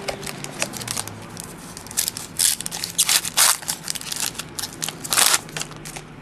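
Football trading cards being handled and slid against one another as a pack is gone through: a run of short rasping swishes and flicks. The loudest come in a cluster around the middle and again near the end.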